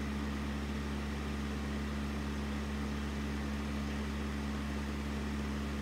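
Steady mechanical hum with a low drone, unchanging throughout.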